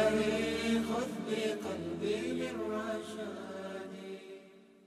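Layered male voices holding wordless, chanted harmonies at the close of an a cappella Islamic nasheed. They fade out to silence near the end.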